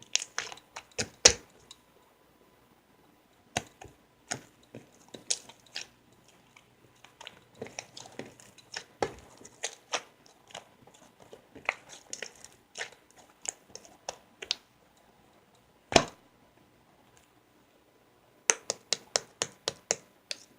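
Close-up crunchy chewing and nibbling in irregular bursts with short pauses. One sharp crunch stands out about two-thirds of the way in, and a quick run of crunches comes near the end.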